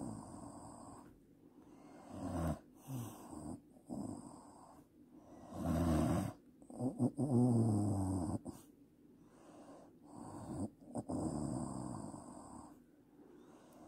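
A woman snoring heavily in her sleep: a series of snores a few seconds apart, with short quiet gaps between breaths. Some snores carry a droning pitch that slides down.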